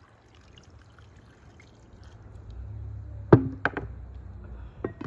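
Water poured from a glass jug into a pot of sliced potatoes, a faint steady splashing. A little past halfway come two sharp clinks, the loudest sounds, and near the end a glass lid is set onto the pot with a click.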